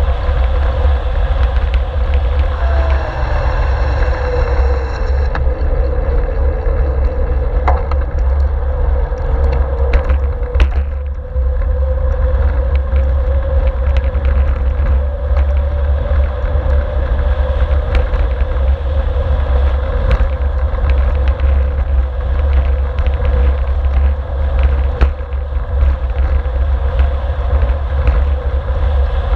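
Wind rushing over the microphone of a GoPro on a moving road bike: a loud, steady low rumble with a thin steady whistle running through it, and a couple of sharp clicks from road bumps in the middle.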